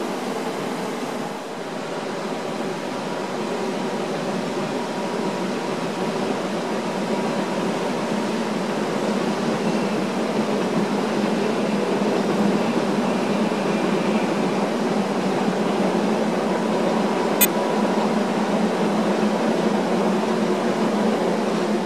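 Rhaetian Railway passenger train rolling over the rails: a steady rumble that slowly grows louder, with one sharp click late on.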